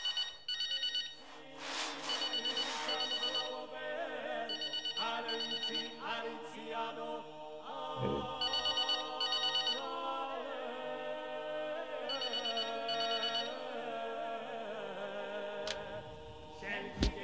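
Mobile phone ringing in about six short trilling bursts, over several voices singing.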